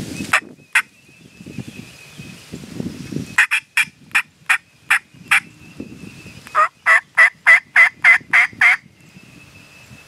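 Turkey box call run in yelps: a first series of about eight sharp, evenly spaced notes, then after a short pause a louder series of about eight yelps at roughly three a second.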